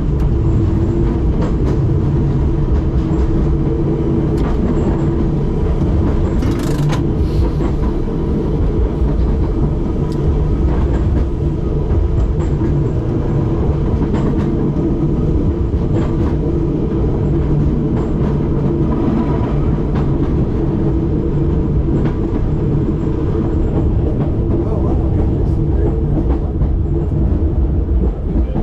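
1944 SW6-class tram running along its track, heard from the driver's cab: a steady low rumble and hum from the running gear, with occasional clicks as the wheels pass over the rails. A brief sharp high noise cuts in about seven seconds in.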